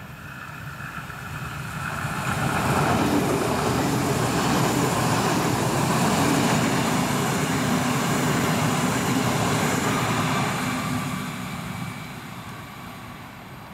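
Two coupled DB Class 430 electric multiple units passing at speed: the rolling and running noise swells as the train approaches, stays loud for about eight seconds as it goes by, then fades as it draws away.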